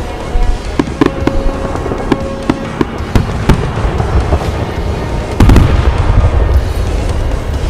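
Fireworks salute going off: a run of sharp bangs and crackles, with one heavy boom about five and a half seconds in.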